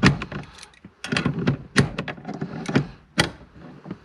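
Steering column parts being fitted and worked by hand: an irregular run of sharp clicks and knocks of hard plastic and metal pieces, some with a dull thud under them.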